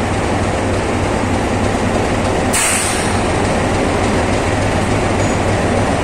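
LHB passenger coaches rolling past as the train pulls out: a steady rumble of wheels on rails, with a short hiss about two and a half seconds in.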